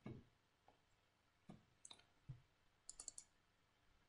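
Faint, scattered clicks of a computer mouse, with a quick run of about four clicks around three seconds in.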